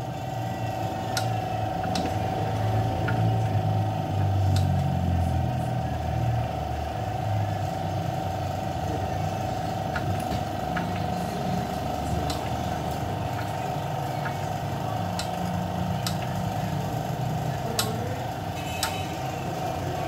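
Hand tools clinking against the metal of a stripped-down engine, in sharp separate clicks every second or two. A steady low rumble and hum run underneath.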